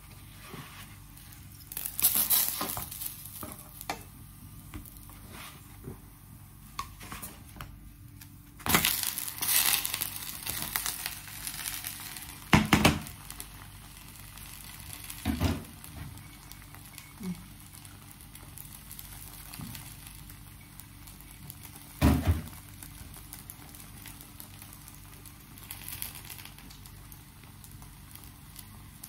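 Pancake frying in oil in a pan: sizzling that comes and goes in bursts, with a few sharp knocks of a wooden spatula against the pan.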